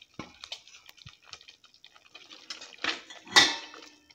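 Perforated steel ladle clicking and scraping against a clay pot while stirring boiled cowpeas into thick ground masala, with the loudest scrape about three and a half seconds in.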